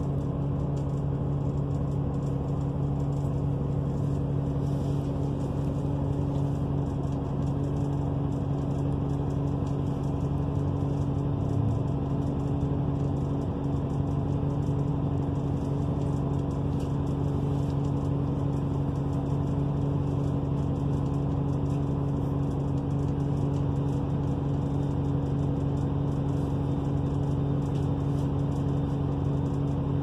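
A NABI 45C-LFW articulated transit bus running, heard from inside the passenger cabin. Its Cummins Westport ISL G natural-gas engine makes a steady low drone whose pitch does not change.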